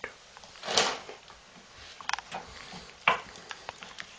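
A young dog sniffing and snuffling at a hand held to its nose, in a few short breathy bursts, the loudest about a second in.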